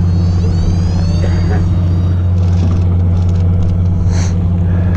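Fishing boat's engine running steadily with a low drone, with a faint high whine rising in pitch near the start.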